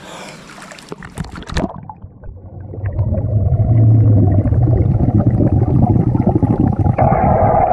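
Water splashing as a swimmer's head goes under, then a loud, muffled bubbling rumble heard from underwater as he breathes out steadily through his nose, a stream of air bubbles rising from his nostrils; it turns brighter near the end.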